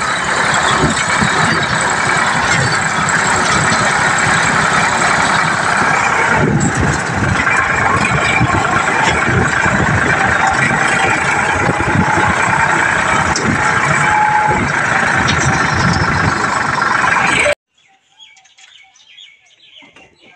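Sonalika DI 745 III tractor's diesel engine running loud and steady as the tractor drives, heard close to its upright exhaust. It cuts off suddenly near the end.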